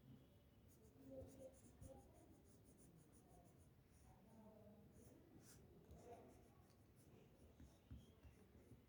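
Faint, irregular scratching of a pastel crayon stroked across paper while colouring in.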